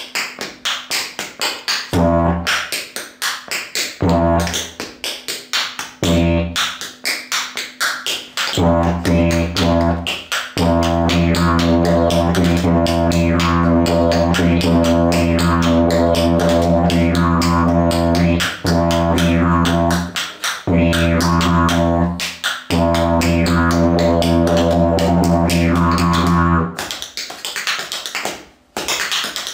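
Tap shoes clicking a fast rhythm on a hard floor, accompanied by a didgeridoo. The didgeridoo first plays short low blasts about every two seconds, then a continuous low drone with shifting overtones, broken by a few short gaps. Near the end the didgeridoo stops and the taps continue alone.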